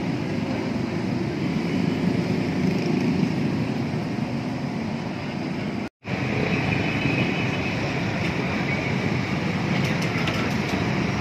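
Steady din of road traffic and street bustle, which cuts out for an instant about halfway through.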